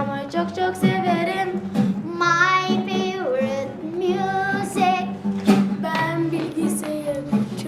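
A child's voice singing a melody over backing music, with steady low notes and a few sharp percussive hits.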